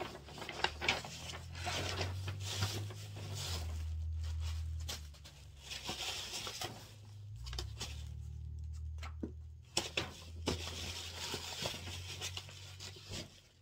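A cardboard shipping box being opened by hand: cardboard and packing paper rustling and tearing, with many short knocks and scrapes, over a low hum that swells and fades.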